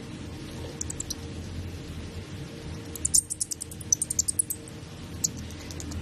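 Baby monkey feeding from a bottle: a quick run of short, high squeaky clicks about three seconds in, with a few single ones before and after, over a low steady hum.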